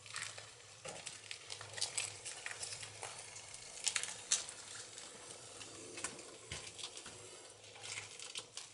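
Irregular light clicks, scuffs and rustles with no steady rhythm, as of someone moving about and handling things, over a faint steady low hum.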